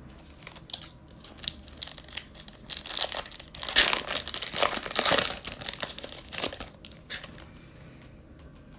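Foil trading-card pack wrapper being torn open and crumpled by hand: a run of dense crinkling, loudest in the middle.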